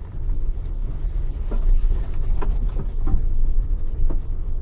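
Road and engine noise inside a moving car, a Pontiac Grand Prix GTP with a supercharged V6: a steady low rumble, broken by a few light knocks or rattles.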